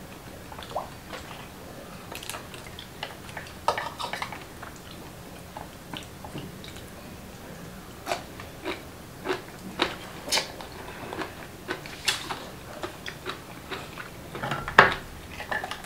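Clam shells and utensils clinking against a glass dish and bowls in scattered sharp clicks, with the loudest knock near the end, amid chewing.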